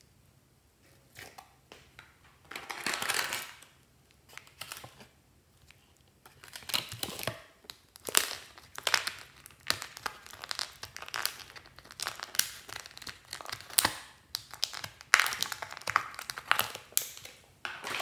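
Thin plastic packaging handled by hands: a plastic tray crinkling and clicking as small mermaid-tail glitter pots are pried out of it. The sound is a string of sharp clicks with a few longer crackly stretches.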